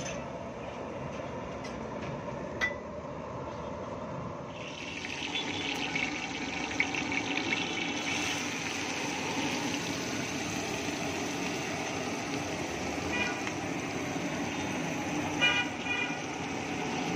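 Chopped onions and green chillies frying in hot oil on a large flat tawa: a steady sizzle starts about four and a half seconds in and keeps going. A few short horn toots sound near the end.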